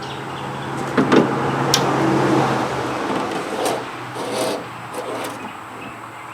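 Door window glass scraping and rubbing against the door's channels and inner panel as it is forced down into a truck door, with a few sharp knocks about a second in. A steady low hum runs under it and stops about three seconds in.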